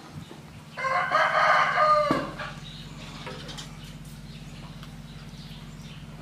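A rooster crowing once, a loud call of about a second and a half starting about a second in and ending on a falling note, over a steady low hum.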